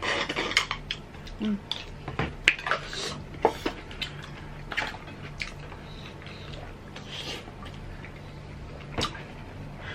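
Eating sounds: dishes and utensils clinking and knocking in a scatter of short clicks, busiest in the first second and again a few seconds in.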